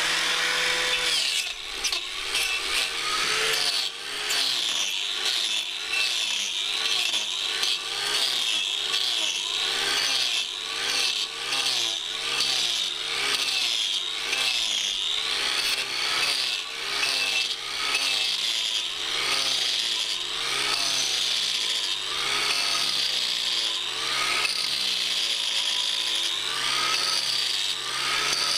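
Angle grinder fitted with an Arbortech TurboPlane disc planing oak. It spins free for about the first second, then cuts in quick sweeping passes about twice a second, the pitch dipping and rising as each pass bites into the wood.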